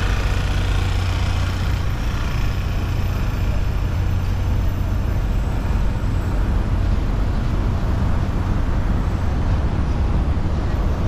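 City street traffic: a steady low rumble of passing vehicles, with faint voices in the first couple of seconds.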